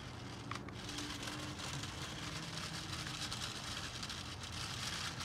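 Faint whine of the JJRC Q69 RC truck's small electric motor under load as it crawls up loose gravel, over a steady low rumble.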